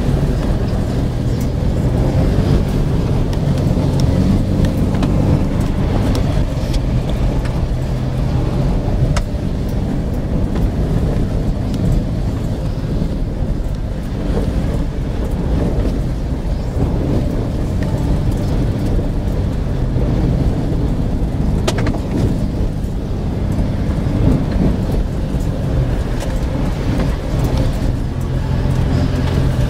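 4x4's engine running steadily, heard from inside the cab, with tyre noise and water splashing as it drives through puddles and slush on a flooded dirt track.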